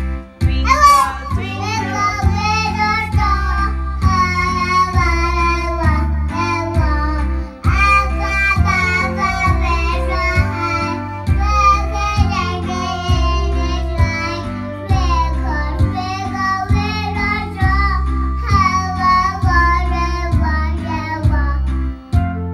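A young child singing along to a karaoke backing track, her voice over a steady, repeating chord accompaniment.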